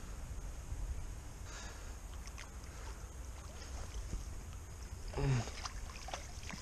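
Faint water splashing and small clicks as a hooked small carp thrashes in the shallows while being played toward the net, over a steady low rumble of wind on the microphone.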